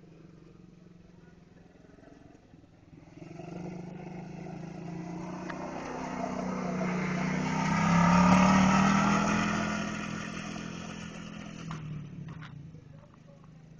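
ATV (four-wheeler) engine coming closer, loudest as it passes about eight seconds in, then moving off and fading by about twelve seconds.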